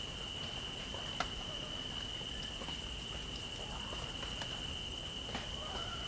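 A steady, unbroken high-pitched insect trill, with a few faint clicks and short bird chirps over it, more of them near the end.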